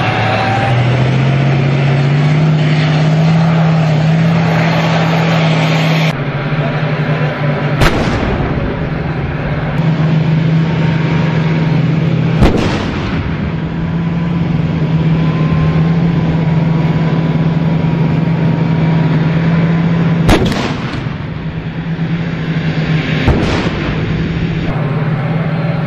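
Tank main gun firing four times at uneven intervals, each a sharp crack, over the steady drone of the tank's engine.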